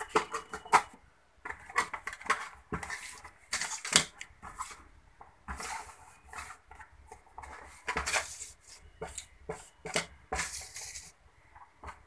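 Cardboard tablet boxes and foil blister strips being handled on a tabletop: an irregular run of sharp clicks and taps as boxes and strips are picked up and set down, with short rustles of cardboard flaps and crinkling foil.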